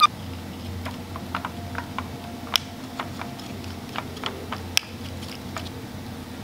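Irregular light clicks and taps of a soldering iron tip and desoldering braid working the solder joints on a circuit board, two of them sharper about two and a half and nearly five seconds in, over a steady low hum.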